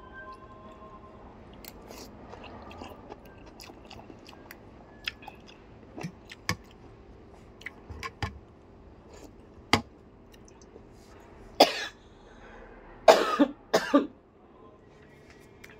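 A person chewing noodles and fresh red chili, with small wet mouth clicks, then coughing three times near the end while eating the spicy food.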